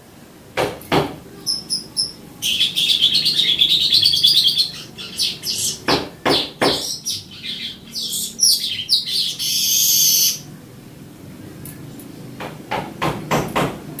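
Streaked weaver singing: dry clicking chatter notes, a loud wavering high phrase, then a buzzy hiss that stops sharply about ten seconds in, with more clicks near the end.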